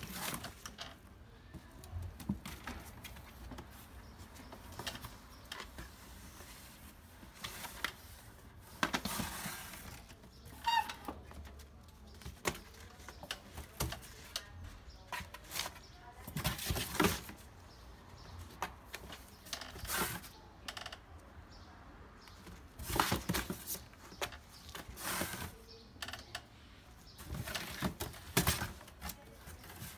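A kitten's claws scrabbling and scratching on a cardboard box and the plastic mesh across its front, in irregular rustling bursts.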